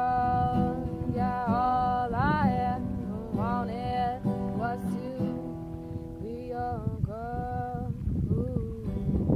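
Acoustic guitar strummed, with a voice singing a slow melody of long notes that bend in pitch over it.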